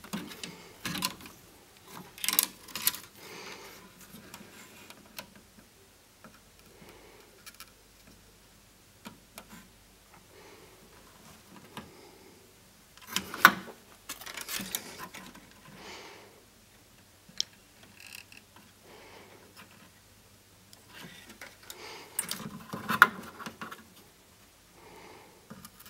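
Handling noises from positioning wires and a soldering iron on a circuit board: scattered clicks, taps and rustles, bunched near the start, about halfway through and near the end.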